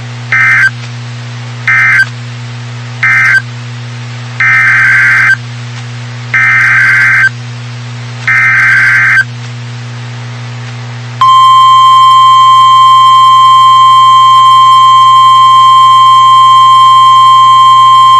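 Emergency Alert System SAME data bursts from a NOAA Weather Radio broadcast: three short buzzing bursts of data tones close the tornado warning, then three longer bursts carry the header of the next alert. About 11 seconds in, a loud steady single-pitch warning alarm tone begins and holds.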